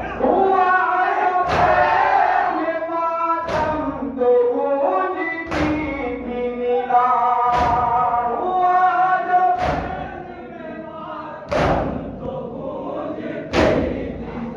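A group of men chanting a nauha, a Shia mourning lament, while doing matam together: a loud collective slap of hands on chests lands in unison about every two seconds, seven times, under the sung melody.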